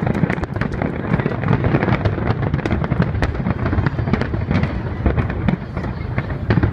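Fireworks display at full intensity: aerial shells bursting in rapid succession, many sharp cracks and bangs packed closely over a continuous low rumble.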